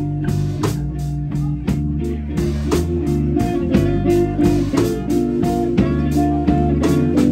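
Live electric blues band playing an instrumental stretch between vocal lines: two electric guitars over bass guitar and a drum kit keeping a steady beat.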